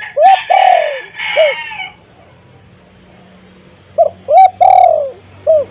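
Spotted dove cooing: two phrases of its typical 'kuk-kurrr-kuk' call, each a mix of short and drawn-out notes that fall in pitch. The first phrase comes right at the start and the second about four seconds in.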